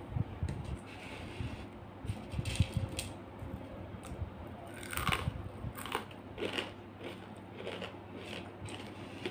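Crunching and chewing of thin, crispy fried potato sticks, close to the microphone: an irregular run of crisp crackles, with a few low thumps in the first seconds.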